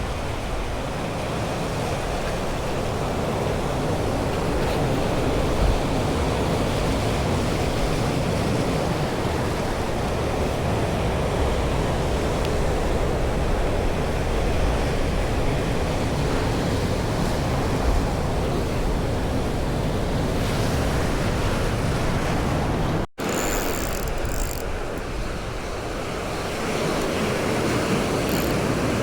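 Ocean surf washing steadily ashore, with wind buffeting the microphone. The sound breaks off briefly once, near the end.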